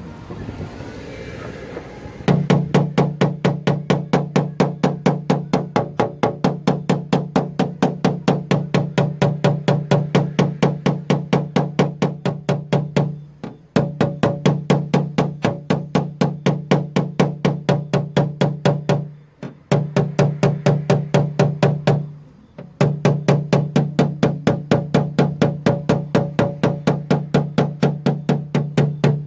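Light hammer taps on the sheet metal of a car door, a steady rapid tapping at about four strikes a second, each with a short metallic ring. The tapping stops briefly three times. This is the tap-down stage of paintless dent repair, knocking down high spots along the door's body line.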